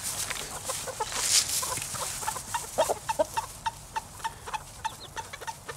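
Silkie hens clucking, with a run of short, evenly spaced clucks at about four a second from about halfway through.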